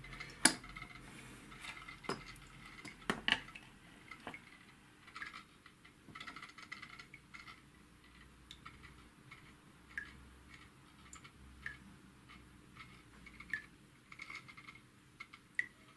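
Scattered small metallic clinks and knocks of tools and parts being handled and set down on a workbench, a few sharper knocks in the first four seconds and lighter ticks after.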